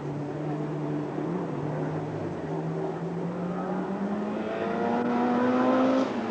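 Group A hillclimb race car's engine accelerating hard up the mountain road, its note rising steadily in pitch and getting louder as it nears, with a short break near the end.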